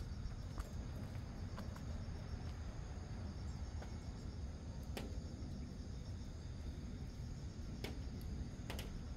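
Faint rural ambience: a steady, high insect chorus, crickets, over a low rumble, with a few scattered sharp clicks.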